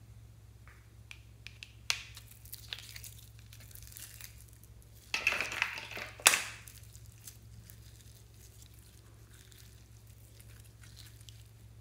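Blue slime being pulled out of its plastic cup and squeezed by hand: a few small clicks of handling, then a louder sticky tearing crackle about halfway through that ends in a sharp snap, then soft squishing.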